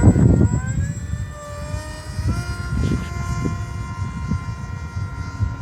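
Wing Wing Z-84 foam flying wing's brushless electric motor and pusher propeller whining in flight. The pitch shifts with throttle in the first two seconds, then holds steady. Wind rumbles on the microphone underneath.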